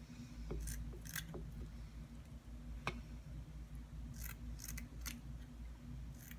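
Kitchen scissors snipping the fins off a small whole fish: about half a dozen short, sharp snips, spaced irregularly.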